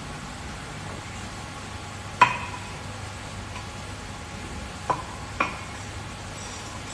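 Three sharp metallic clinks that each ring briefly: one about two seconds in, the loudest, then two close together about half a second apart near the five-second mark. They sit over a steady hiss of machine noise.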